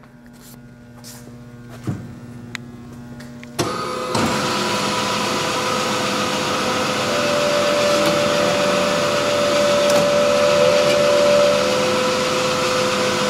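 Kalamazoo AH9AW horizontal bandsaw switched on about three and a half seconds in, then running steadily: a loud, even machine noise with a steady whine.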